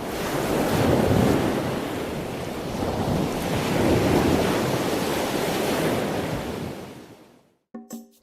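Ocean surf washing in, swelling twice and then fading out near the end, when music with short plucked notes begins.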